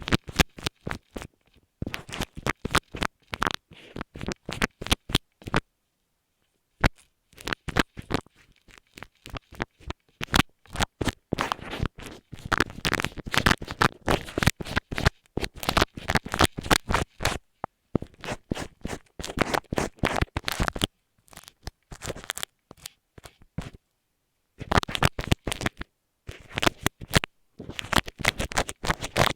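Quick scratching and rubbing strokes made right against an earphone microphone, in runs with short pauses between them.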